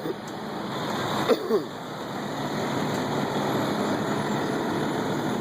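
Heavy road-milling equipment running steadily as asphalt is ground off the street, with a brief knock and a short falling squeal about a second in.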